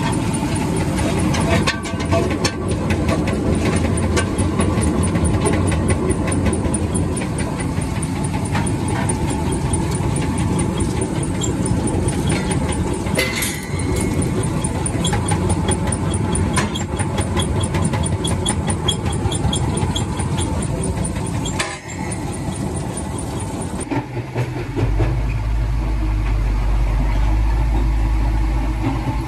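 Tractor-PTO-driven Herbst compact agri-crusher running, with steady machine noise and frequent sharp clicks and clatters as stone and brick break through its jaws. About three-quarters of the way through, the sound gives way to a steady low engine drone heard from inside an excavator's cab.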